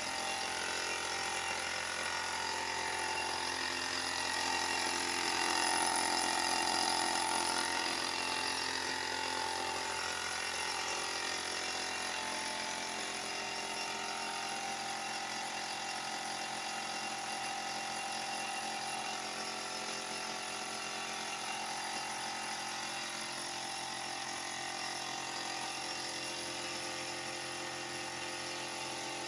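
Hose-fed air spray gun hissing steadily as it sprays clear finish onto wooden furniture, over the continuous mechanical running of the air compressor that feeds it.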